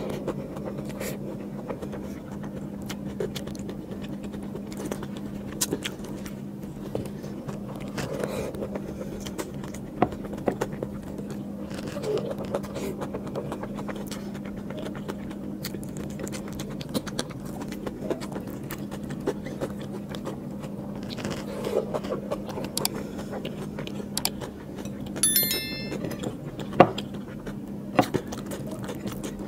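Close-miked hand eating of biryani: fingers mixing and scooping rice on a plate, and chewing, as scattered small clicks and scrapes over a steady low hum. One sharper click stands out near the end.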